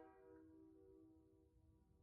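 Near silence: the faint tail of an air horn's chord, a few steady tones fading away as the blast cuts off.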